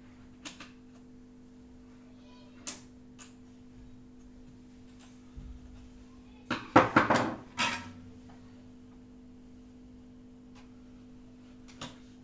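Scattered light clicks and knocks over a steady low hum, with a brief loud clatter about six and a half seconds in.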